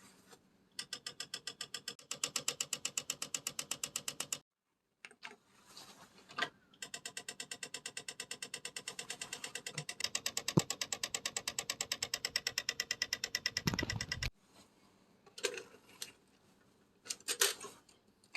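Victor UX-W50 double MiniDisc player's mechanism rattling in two long runs of rapid, even clicks, then a few single clicks near the end. The rattle is the fault the deck is being restored for.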